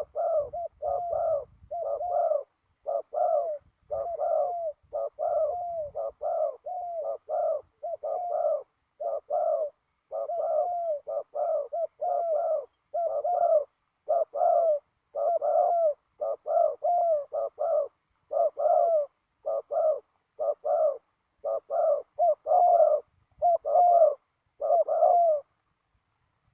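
Spotted dove cooing over and over, a steady run of short, mellow notes about one to two a second with brief pauses between phrases, stopping near the end.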